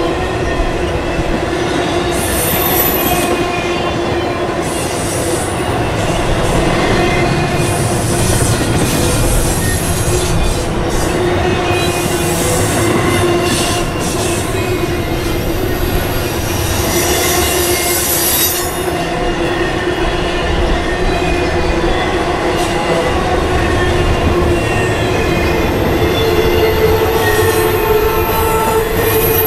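CSX intermodal freight train's cars passing at close range: the steady rumble of steel wheels on rail, with a sustained squeal from the wheels held through the whole pass.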